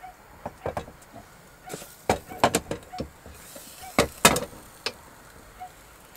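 Metal clunks and clatter of Ridge Monkey sandwich toaster pans being handled and turned over on a gas hob, with clusters of sharp knocks about two seconds in and, loudest, about four seconds in.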